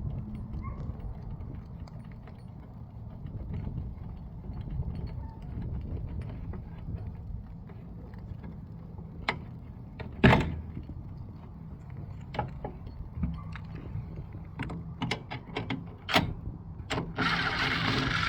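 Tools and metal parts being handled inside a furnace cabinet: scattered clicks and knocks, with one sharp loud knock about ten seconds in and a short hissing rush near the end.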